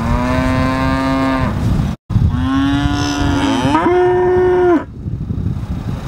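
Dairy cow mooing: two long moos, the second stepping up in pitch before it ends, over low outdoor background noise.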